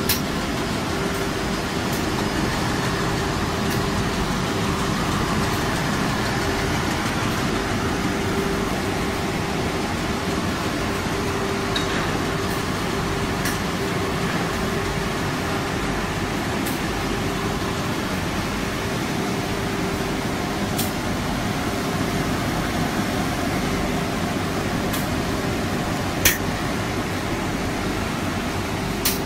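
Wood veneer printing line machinery running: a steady mechanical hum with a faint steady tone through it. A few sharp clicks, one louder near the end.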